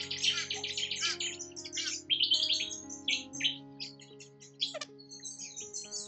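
Many small birds chirping and twittering in quick, overlapping calls, over soft, steady background music.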